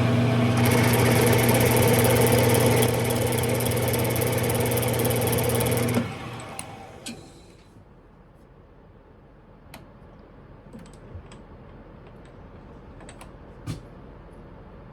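Smithy lathe's electric motor running with a steady hum and high whine for about six seconds, then switched off and winding down over a second or so. A few light clicks follow.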